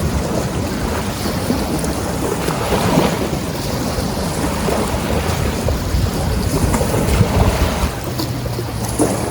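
Strong wind buffeting the microphone: a steady rushing noise with gusty low rumbling. A low steady hum comes in about eight seconds in.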